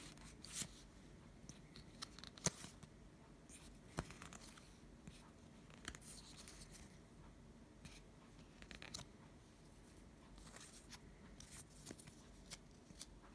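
Faint rustling and soft clicks of Pokémon trading cards being slid through a hand-held stack, a card at a time, with a short pause between each.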